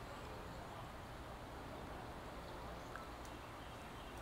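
Faint outdoor ambience: a steady low hiss with a low rumble underneath, and one small click about three seconds in.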